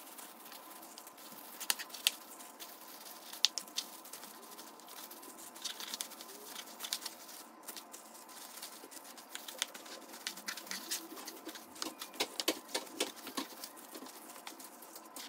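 Seasoned pork back ribs being handled with a plastic-gloved hand: soft wet squishing and slapping as oil and spice rub are worked into the meat and the pieces are laid into a glass baking dish, with scattered sharp clicks and taps, a cluster of them near the end.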